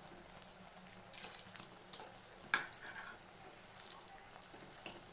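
Onion bajji deep-frying in oil in an aluminium kadai: a faint steady sizzle with small crackling pops. A metal skewer turns the fritters and taps the pan, with one sharp click about halfway through.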